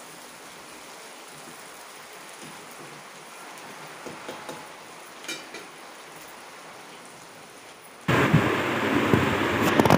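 Chopped onion sizzling and frying in oil in a kadhai over a wood fire, with a steady hiss as it is stirred. About eight seconds in, the sound jumps much louder, and there are a couple of sharp knocks near the end.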